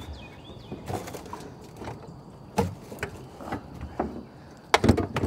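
Scattered knocks and clunks of gear being handled in a pickup truck bed: hose, hose reel and pressure-washer equipment shifted and set in place. A quick cluster of louder knocks comes near the end.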